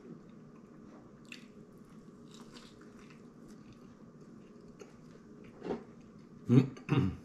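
A man biting and chewing a mouthful of burger, with faint wet mouth clicks, then three louder, heavier eating sounds: one about five and a half seconds in and two close together near the end.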